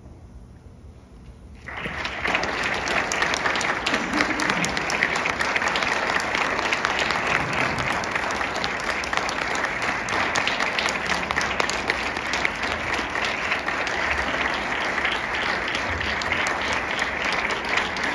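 A short hush, then audience applause breaks out about two seconds in and carries on steadily.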